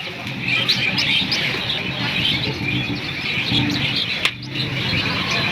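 Many small birds chirping continuously and overlapping, over a low background rumble, with a single sharp click about four seconds in.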